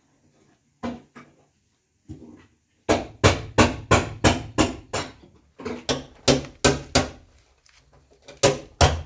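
Hammer blows from inside a truck cab at the base of the windshield, in quick runs of about three strikes a second. A few light knocks come first, the steady hammering starts about three seconds in, and it breaks off twice briefly.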